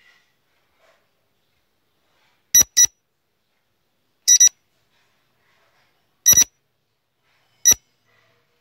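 Countdown-timer sound effect: short, high electronic beeps, four times about every one and a half to two seconds, the first two coming as quick double beeps, with silence between.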